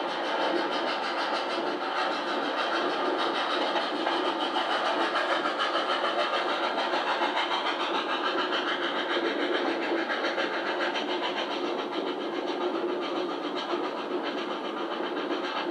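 R class steam locomotives working hard at speed on the adjacent track, heard from an open carriage window over the running noise of the train itself. The sound is thin and without bass, as played from videotape through a television speaker.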